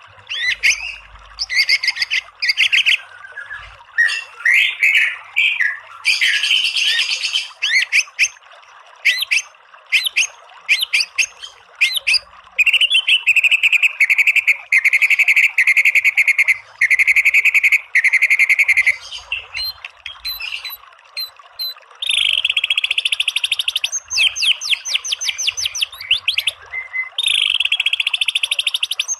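White-rumped shama (murai batu) singing: varied whistled phrases, then long rapid-fire series of rattling repeated notes (the 'tembakan') about halfway through and again near the end, over a faint steady hiss.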